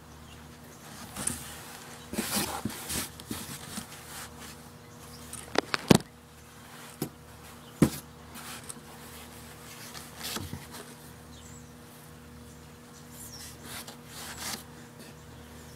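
Hands handling cloth in a cardboard box: bursts of rustling with a few sharp knocks, three close together about six seconds in and another near eight, over a low steady hum.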